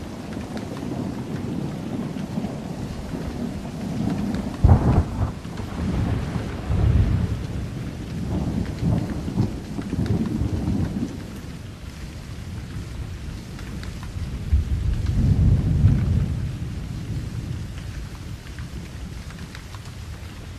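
Thunderstorm: steady rain with rolling thunder, a sharp thunderclap about five seconds in and a long swelling rumble around fifteen seconds in.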